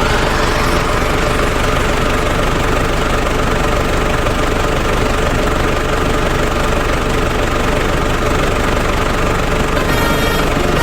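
Truck engine running steadily, with no revving.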